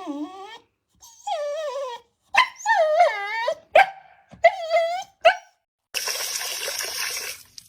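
A dog whining and yowling in a series of high, wavering cries, several short ones in a row. Near the end comes a burst of hissing noise lasting over a second.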